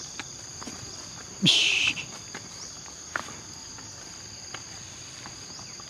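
Steady high-pitched insect drone, crickets or cicadas holding two even tones, with a few faint clicks of footsteps. About a second and a half in there is a brief, loud, hissy sound lasting under half a second.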